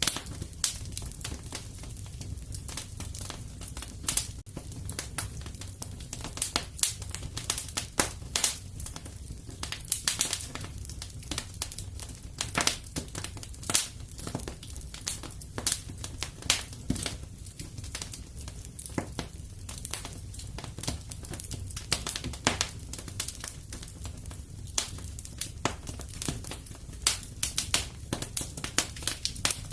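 Fire in a fireplace crackling, with dense, irregular sharp pops over a low, steady rumble.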